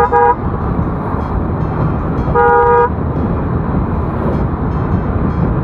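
A vehicle horn honking: two quick toots right at the start and one longer honk about two and a half seconds in. Underneath, steady motorcycle engine and wind noise from riding.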